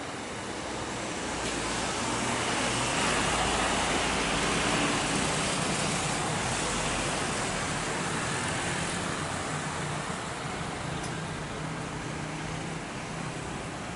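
Jet airliner passing close by, its engine roar swelling over the first few seconds and then slowly fading away.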